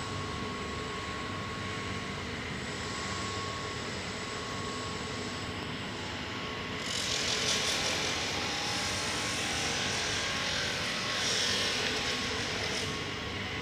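Steady factory machinery hum with a few faint steady tones running under it. About seven seconds in, a brighter hiss joins and lasts for several seconds, then drops away near the end.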